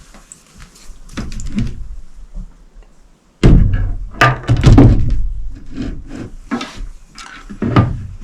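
Camera gear being handled and packed away: a string of knocks, thuds and rustles, the loudest a heavy thud about three and a half seconds in, followed by a cluster of knocks.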